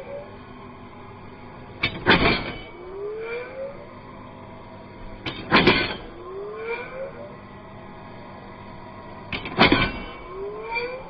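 Nail gun firing three times, about three and a half seconds apart. Each shot is a sharp crack followed by a short rising whine.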